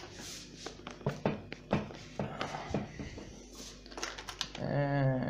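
Footsteps on a hard floor and scattered small knocks and clicks of objects being handled on a table. Near the end, a man makes a short voiced sound.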